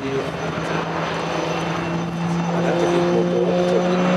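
Eurocopter X3 hybrid helicopter in flight overhead: its main rotor, two wing-mounted pusher propellers and turbine engines make a steady loud drone with a constant low hum. The drone grows somewhat louder about halfway through.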